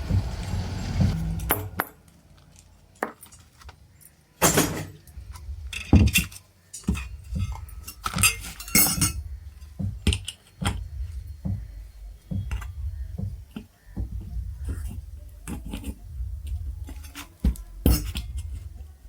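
Metal tools and ceiling fan parts being handled during a repair: a string of sharp clinks, taps and knocks, a few of them louder, over a low steady hum.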